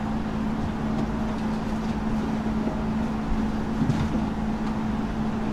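A steady low machine hum, with one faint knock about four seconds in.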